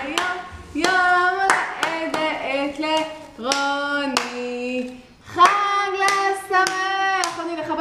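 A group, children among them, sings a birthday song together while clapping hands in time, with a short break in the singing about five seconds in.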